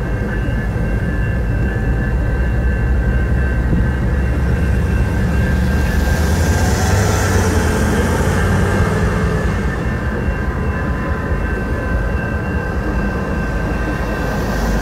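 A CN business train's passenger cars rolling past at a level crossing. There is a steady rumble of wheels on rail, with a rise in hiss around the middle, and the crossing bell ringing steadily over it.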